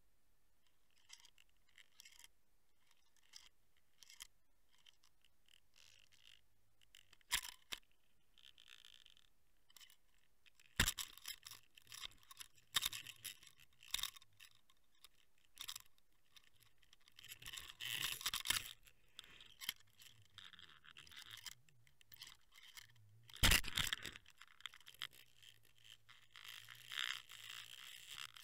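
Irregular scraping and clicking picked up by an underwater camera housing riding on a fishing line above the lure, as line and rig rub and jerk against it. Loud sharp knocks come about seven, eleven and twenty-four seconds in.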